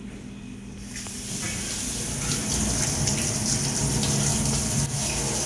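Kitchen tap turned on about a second in, water running steadily and splashing onto vegetables in a stainless-steel colander over a steel sink.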